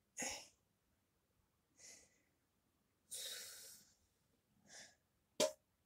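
Someone rummaging through a kitchen cupboard: a few faint, short rustles and breaths, then one sharp knock near the end.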